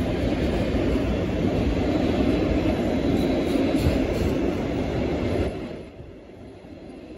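Loaded log wagons of a freight train rolling past on the rails, a steady low rumble that drops away sharply about five and a half seconds in.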